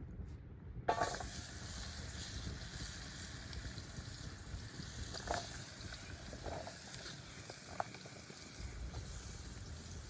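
Steady hiss of cooking over a campfire, which starts abruptly about a second in, with a few short clicks and small knocks through it.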